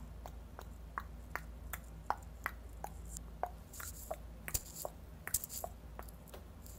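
Mouth clicks made with the tongue, a steady string of about two to three a second, the pitch shifting from click to click. They are an idle habit.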